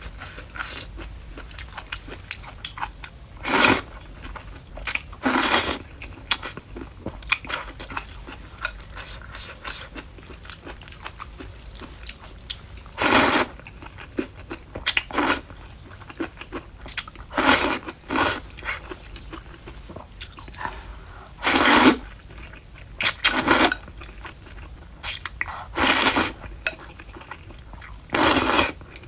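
Close-up eating sounds: a person chewing crisp braised bamboo shoots with soft mouth clicks throughout, broken by about ten short, louder crunching bursts every few seconds.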